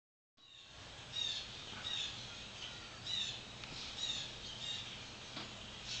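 A large flock of blackbirds calling, with short squeaky calls that fall in pitch about once a second over a faint steady low hum.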